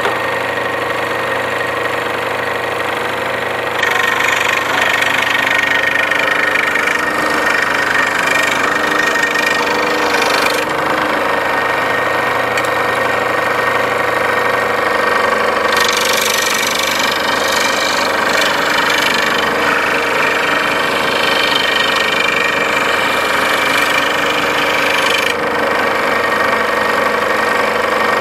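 Makita scroll saw running with a steady motor hum. About four seconds in, the blade starts cutting plywood and a louder cutting noise joins, rising and easing a few times as the piece is steered along the outline.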